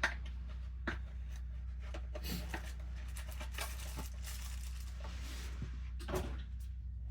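Tools being handled and set down: scattered clicks and clattering knocks, the sharpest right at the start and another about six seconds in, over a steady low hum.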